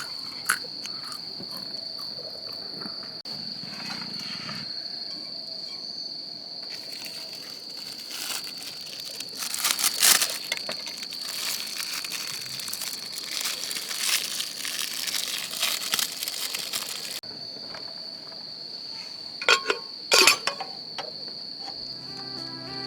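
Insects chirring in a steady high-pitched drone. Over it come bouts of crinkling and rustling, with a few sharp clicks about ten seconds in and again near twenty seconds.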